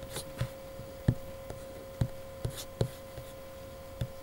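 Several short, light computer mouse clicks and knocks scattered irregularly over a faint steady hum.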